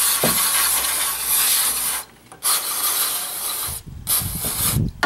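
Aerosol can of throttle body and air intake cleaner spraying through its straw into a throttle body in three bursts of hiss: a long one that stops about two seconds in, then two shorter ones, each cut off sharply.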